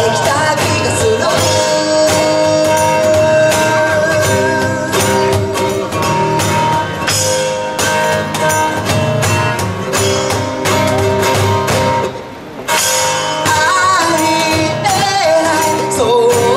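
Live acoustic band playing an instrumental passage of a pop-rock song: acoustic guitar with held notes over it and a cajon keeping a steady beat. The band drops out briefly near the end, then the lead vocal comes back in.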